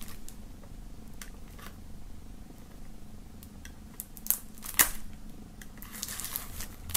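Knife tip scraping and clicking along the edge of a plastic CD jewel case as it slits the shrink-wrap film: quiet scratches with a few sharp clicks, the loudest about four and five seconds in.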